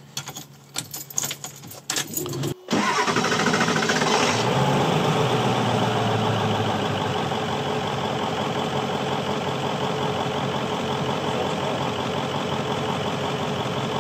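Ford 7.3-litre V8 diesel being cold-started below freezing after its glow plugs have been cycled: a few light clicks as the key is worked, then about three seconds in the engine is running, louder for the first second or so, before settling into a steady idle.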